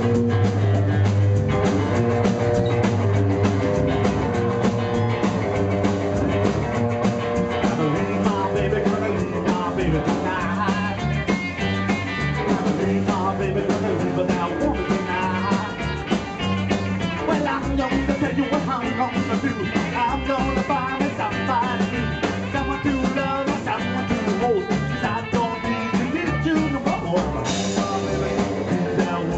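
Live rockabilly band playing: slapped upright bass, strummed acoustic guitar, electric guitar and drums, with a male lead vocal.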